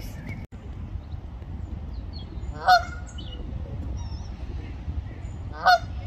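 Canada goose honking twice: two short, loud honks about three seconds apart, over a steady low background rumble.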